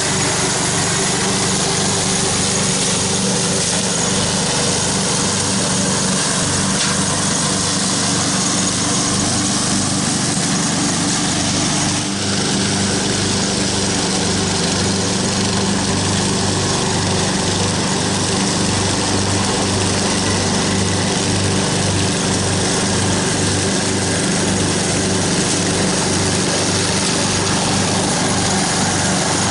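Craftsman riding lawn mower's engine running steadily under load as its deck mulches dry fallen leaves.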